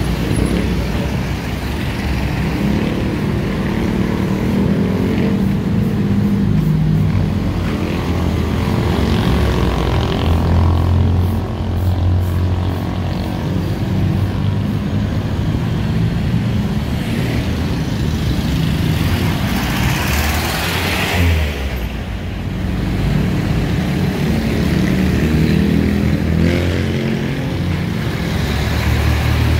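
Street traffic with jeepney diesel engines and motorcycles running and passing close by, their engine pitch rising and falling as they go, with one louder rushing pass about two-thirds of the way in.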